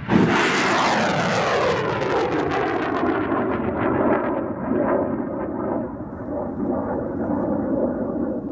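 Jet aircraft roar: a loud rush that comes in suddenly and sweeps down in pitch over the first few seconds, then goes on as a steady jet roar.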